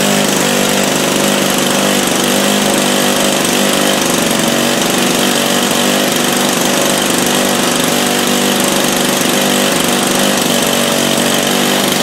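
ZDZ 80 two-stroke petrol engine of a scale RC P-40 model running loud and steady at a constant speed, exhausting through scale exhaust stacks.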